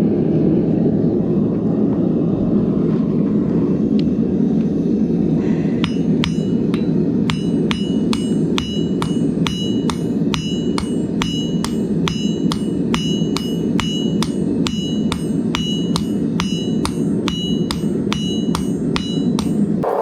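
Gas forge burner running with a steady roar. About five seconds in, a hand hammer starts striking red-hot steel on an anvil in a steady rhythm of about two blows a second, each blow ringing out.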